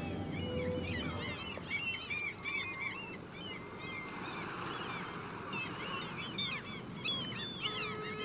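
A flock of birds calling: many short, overlapping calls throughout, with a soft rush of noise swelling briefly in the middle.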